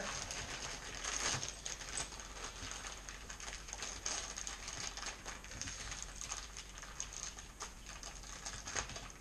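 Thin plastic bag crinkling and rustling as it is handled and opened, with many small irregular clicks and crackles.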